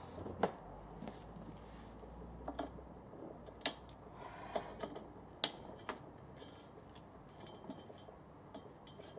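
Plastic cable ties being snipped with cutters: a few sharp snaps, the clearest about half a second in, near four seconds and near five and a half seconds, with lighter ticks of handling between.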